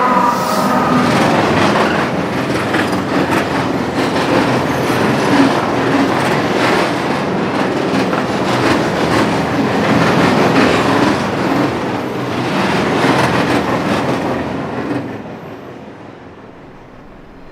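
A train passing at speed: a dense rush of steel wheels on rail with rapid clickety-clack, a brief wheel squeal at the start, then dropping away sharply about fifteen seconds in.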